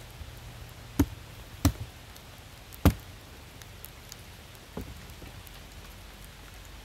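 Wooden quilt box filled with pine shavings being set down onto the top of a beehive: three sharp wooden knocks within about two seconds, the last the loudest, then a softer knock near the end.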